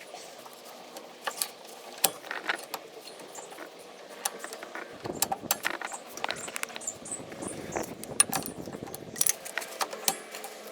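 Small steel drum-brake hardware (springs, adjuster and lever) clinking and clicking as it is handled and fitted together, with scattered sharp metallic clicks and some scraping about halfway through.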